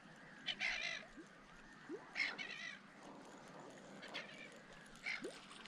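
A gull calling repeatedly, about four calls a second or two apart.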